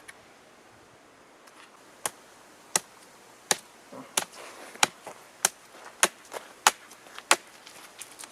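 Steady chopping with a blade on wood: sharp knocks about every two-thirds of a second, starting about two seconds in.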